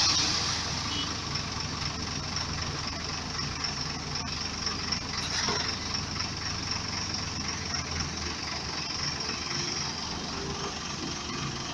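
Diesel engines of an asphalt paver and the dump truck tipping asphalt into it, running steadily.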